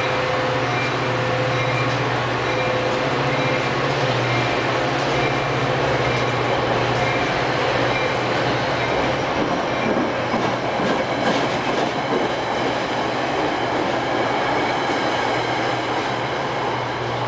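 Metra bilevel commuter cars rolling slowly past: a steady rumble and hum of steel wheels on rail, with a run of clicks over rail joints about ten seconds in.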